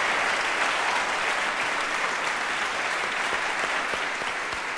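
Audience applauding, a dense even clapping that thins slightly toward the end, where single claps stand out.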